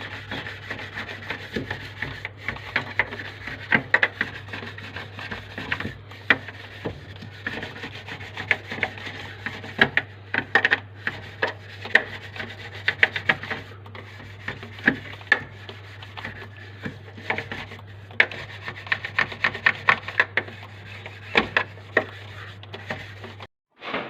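A soft brush scrubbing the inside of a refrigerator: runs of quick rubbing strokes and light scrapes. A steady low hum sits underneath and cuts off near the end.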